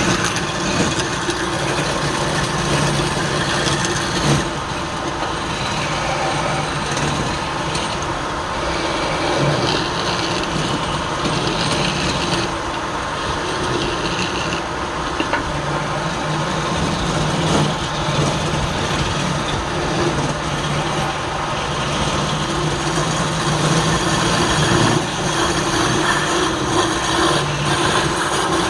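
Woodturning lathe running steadily with wood being worked on it: a motor hum that fades and returns under a continuous rasping noise.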